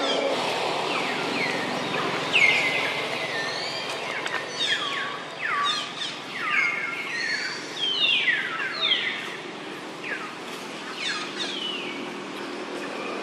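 Birds calling: repeated short, high chirps that slide downward in pitch, several a second at times, over a low steady background noise.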